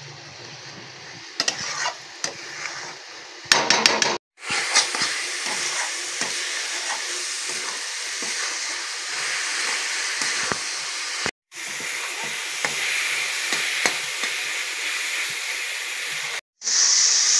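Flat metal spatula scraping and stirring a grated coconut and sugarcane jaggery mix in a metal kadai, with steady sizzling from the hot pan. It is quieter for the first few seconds, then sizzles steadily, breaking off suddenly twice for a moment.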